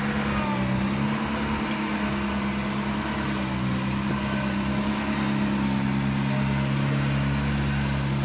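Engine of a Toro sprayer utility vehicle running steadily at an even pitch as the vehicle drives slowly.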